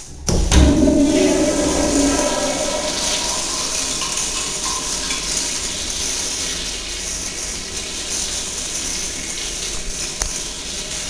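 A commercial toilet's Sloan flushometer valve flushing when its handle is pressed: a sudden loud rush of water, then a steady rushing flow through the bowl.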